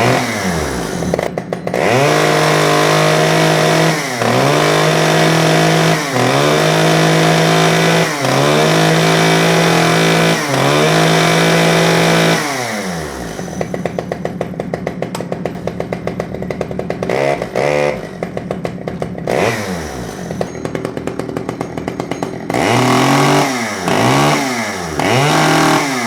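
Stihl 009 chainsaw's 36.6 cc two-stroke engine running: held at high revs in bursts of about two seconds with brief dips between them for the first half, then dropping to a steady idle, with several short throttle blips near the end.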